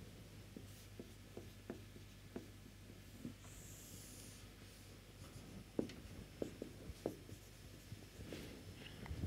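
Marker pen drawing on a whiteboard: short scratchy strokes and taps as lines are drawn, louder and closer together in the second half, over a steady low hum.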